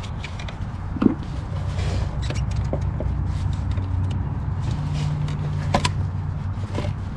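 Scattered clicks and taps of hands and a tool working a plastic sensor connector and a hose clamp on a charge pipe in an engine bay, over a steady low hum.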